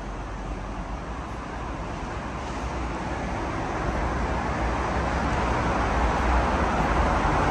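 Street traffic noise: a steady rush of passing cars with a low rumble, slowly growing louder.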